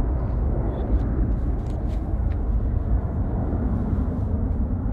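Jet engine noise from a Boeing 737-800's CFM56-7B turbofans as the airliner climbs away after takeoff: a steady low rumble that grows slightly fainter.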